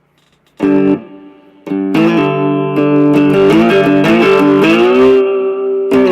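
Three-string cigar box guitar played through an amplifier: a single chord struck about half a second in and left to ring, then a run of notes that glides up into a held note near the end.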